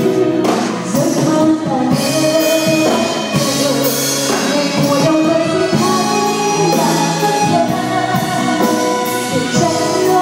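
A woman singing a Vietnamese love song live into a microphone, backed by a band with drums, electric guitar and keyboard.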